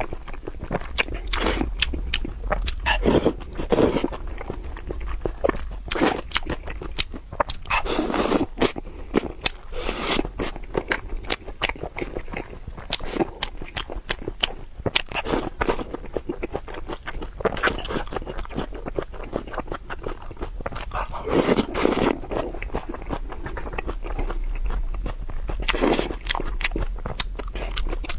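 A person eating crunchy food close to the microphone: crisp biting and chewing crunches, with sharp crackles throughout and louder bites every few seconds.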